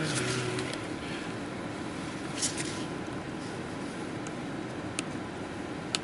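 Steady hum of the truck's HVAC blower fan, which is stuck on and will not shut off. A few sharp taps of a stylus on a scan tool's touchscreen sound over it: a quick cluster about two and a half seconds in, then single taps near the end.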